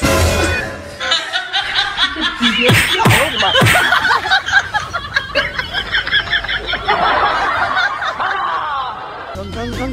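Human laughter, in many short bursts one after another from about a second in until shortly before the end. A brief burst of noise comes right at the start.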